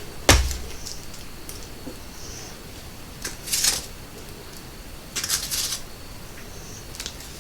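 A sharp knock, then two brief bursts of rustling and scraping as an onion is worked by hand in a bowl of seasoned flour mixture.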